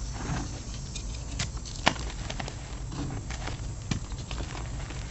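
Dyed gym chalk crunching and crumbling as hands press into it and squeeze a chunk, a dry powdery rustle broken by scattered sharp cracks as pieces snap, the loudest a little under two seconds in.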